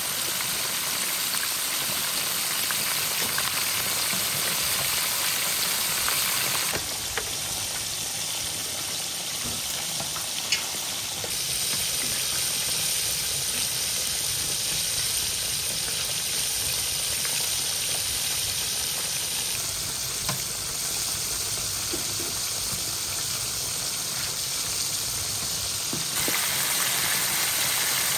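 Food frying in hot oil: a steady sizzling hiss with a few small pops, changing level suddenly a few times.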